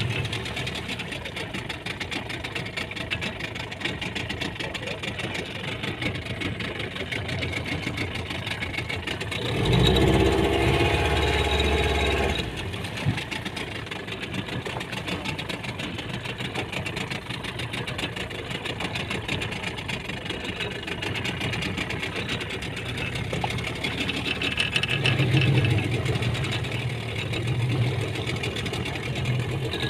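Small fishing boat's engine running steadily at low speed, with a louder, rising stretch about ten seconds in.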